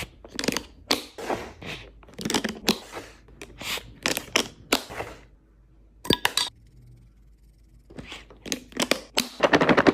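Plastic wrap and packaging being handled close up: a run of crinkles, rips and snaps, a pause of about two seconds, then a fast even run of clicks near the end.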